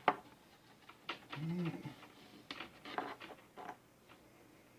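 Scattered small clicks and handling noises as plugs on an LED light kit's controller are connected, with a short murmur from a person around a second and a half in.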